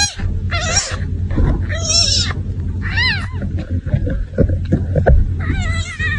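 An animal gives about five short calls, each rising and then falling in pitch, over a steady low rumble. A few short knocks come around four to five seconds in.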